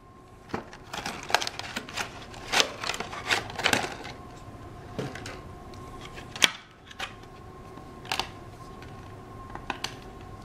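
Clear rigid plastic packaging being handled and pulled off a small speaker: a quick run of clicks and crinkles. After that come scattered single clicks, one louder one about two-thirds through, as the plastic wrap is peeled off. A faint steady tone hums underneath.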